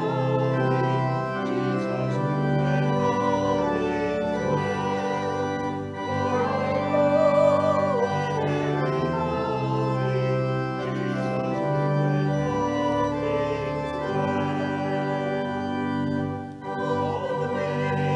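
Organ accompanying a congregation and choir singing a hymn, sustained chords under the voices, with a brief break between lines near the end.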